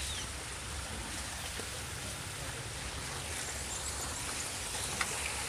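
Steady outdoor ambient hiss, with one faint click about five seconds in.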